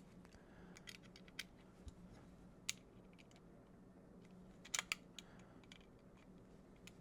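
Faint, scattered small clicks of revolver parts being handled: the brass grip strap being fitted to the frame and its screws picked up. A close pair of sharper clicks comes about two-thirds of the way through, over a low steady hum.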